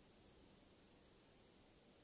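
Near silence: only a faint, steady hiss.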